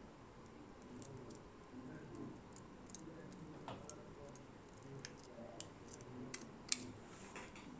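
Steel scissors trimming the edge of a thin plastic COF flex ribbon from a TV panel, giving a series of faint small clicks and ticks, the sharpest one near the end.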